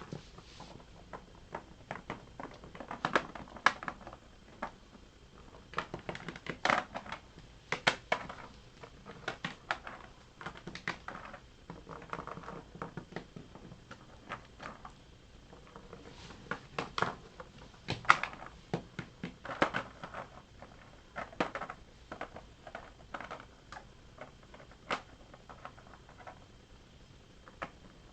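Irregular clicks and taps of small hard plastic pieces being handled, moved and set down, coming in scattered clusters.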